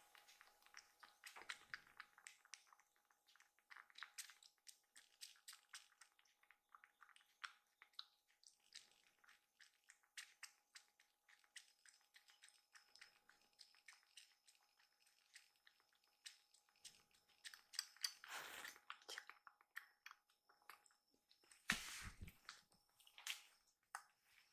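A kitten suckling milk from a feeding bottle: fast, faint, irregular wet clicking of its mouth on the rubber nipple. In the last few seconds there are a few louder scuffs.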